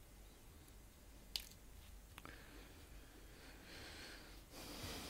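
Faint handling sounds of nitrile-gloved hands working on phone parts: a small sharp tick about a second and a half in, another just after two seconds, then soft rustling that grows louder near the end.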